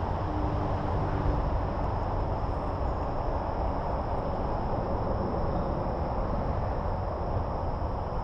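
Steady chorus of insects, a continuous high trill, over a steady low rushing noise.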